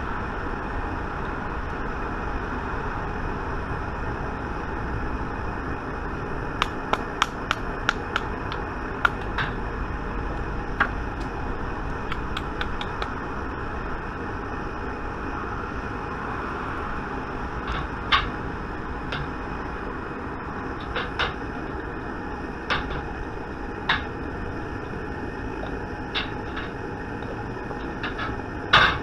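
Sharp metallic clicks and taps from a wooden-handled bullet mold being handled and knocked during lead bullet casting: a quick run of about a dozen, then single taps every second or two, the loudest near the end. A steady rush lies under them.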